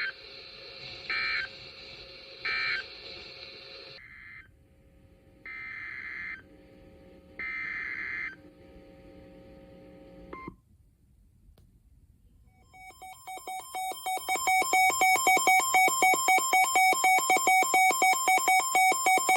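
Emergency Alert System tones between two severe thunderstorm warnings. First come three short bursts of SAME digital data tones about a second apart, the end-of-message code for the warning just read, then two longer data bursts and a brief beep. About 13 s in, a loud, rapidly pulsing two-tone alert signal fades in and holds, then cuts off suddenly.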